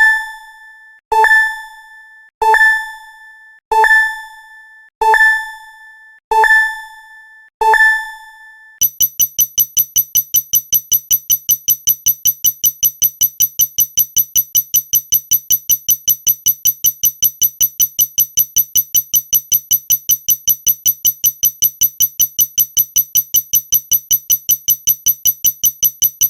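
A bell-like ding struck seven times, evenly spaced about a second and a bit apart, each ringing and dying away. About nine seconds in it gives way to a fast, evenly pulsing electronic beeping tone that keeps repeating.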